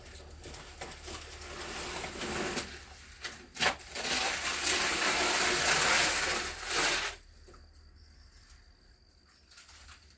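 Banana leaves rustling and tearing as an elephant drags and crushes them with its trunk, building up and loudest for about three seconds in the middle before dying down abruptly. A single sharp crack a few seconds in, like a stalk snapping, is the loudest moment.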